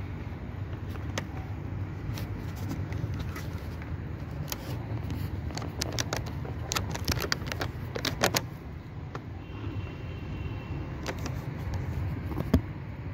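Small sharp clicks and taps of metal and plastic as a laptop's screen hinge and frame are handled and worked on with hand tools, over a steady low rumble. The clicks come thickest in a cluster around the middle, and there is one louder click near the end.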